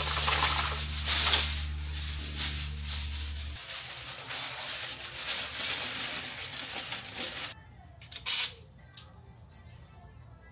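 Paint spraying in a long hiss with a clatter of rattles, which stops about seven and a half seconds in, then one short, loud burst of spray about a second later.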